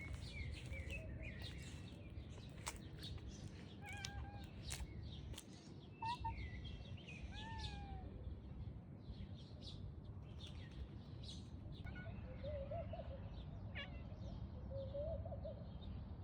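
Small birds chirping in short rising and falling notes over a steady low rumble, with a cat mewing softly a few times in the last few seconds.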